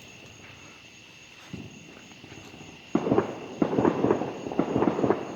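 Fireworks going off: about three seconds in, a rapid, loud run of sharp pops and crackles starts and keeps going, after a quieter stretch with a single soft thump.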